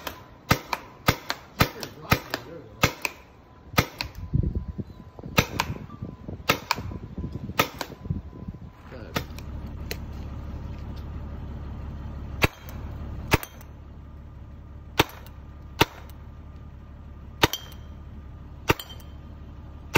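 Paintball marker firing: about twenty sharp pops, quickly at first, about two a second, then slower, one every second or two. The last few pops are each followed by a short ringing tone.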